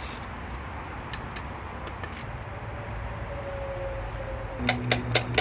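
Scattered metallic clicks of tools working on an engine block. Near the end a small motor starts humming steadily with rapid clicking over it, as the connecting-rod cap nuts are being undone.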